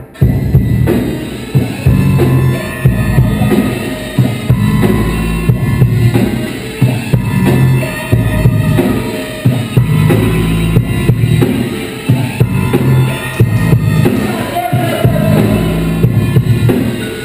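Background music with a loud, steady drum-kit beat, cutting in suddenly.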